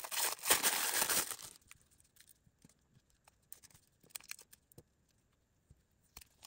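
Packaging crinkling and tearing as a washi tape roll is unwrapped, for about the first second and a half, then faint scattered taps and rustles of handling.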